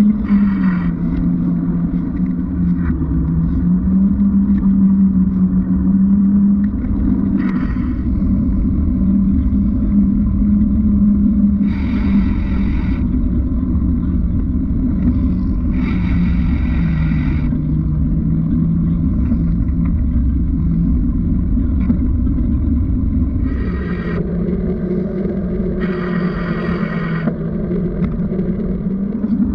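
Muffled rumble of wind and road noise from a bicycle ride, heard through a sealed GoPro waterproof case, with a steady low hum whose pitch dips and comes back a few times. Several short, brighter rushes of noise break in along the way.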